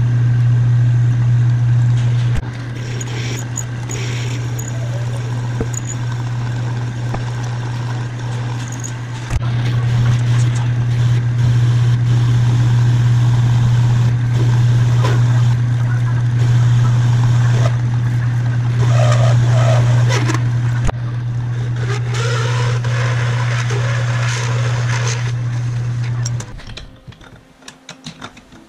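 Metal lathe running with a steady low hum while a twist drill held in the tailstock bores through a metal bracket in the four-jaw chuck. Scraping cutting noise rises over the hum in the later part. The machine shuts off and the sound falls away near the end.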